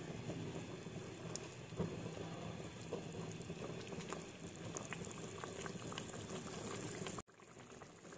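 Thick ground garlic, ginger, onion and tomato masala paste bubbling and spluttering as it fries in hot oil in a kadai, the paste still cooking down. Steady, with many small pops; it stops abruptly about a second before the end.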